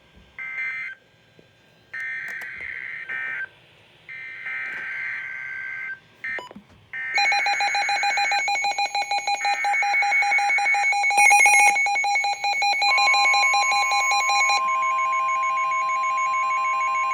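NOAA Weather Radio alerting signals. First comes a string of short, harsh, buzzy SAME digital data bursts. About seven seconds in, a weather radio receiver's loud, rapidly pulsing alarm beep begins. From about thirteen seconds in, the steady 1050 Hz weather radio warning alarm tone sounds under it, announcing the next warning.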